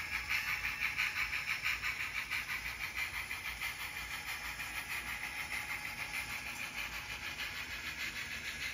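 Model train running on the layout's track: its wheels click along in a quick, even rhythm over a steady running noise, slowly fading as it moves away.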